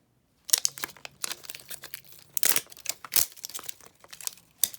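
Blind-pack packaging crinkling and rustling in a rapid run of crackles, starting about half a second in, as it is worked at and torn in an attempt to get it open.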